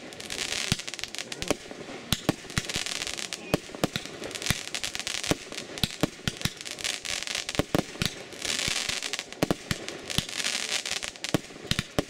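Fireworks display: aerial shells launching and bursting in a rapid, irregular string of sharp bangs, with stretches of hissing crackle between them.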